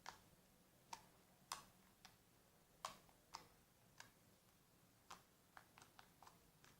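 Faint, irregular small clicks and taps, roughly two a second, over near silence.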